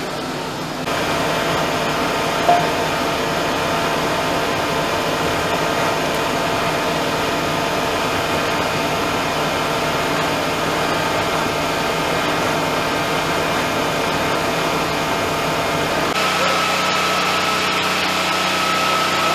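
Fire engine running with its pump supplying a hose line: a steady mechanical drone with several held tones, and a brief sharp chirp about two and a half seconds in. Near the end the sound cuts to a different steady hum with a high whine.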